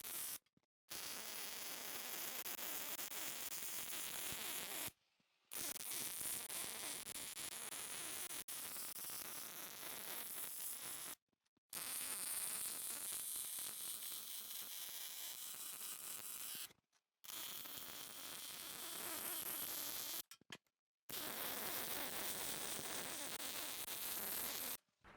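Welder laying beads along the outside seams of a steel front bumper: steady noise in five runs of about three to six seconds each, each cutting off suddenly when the arc is stopped.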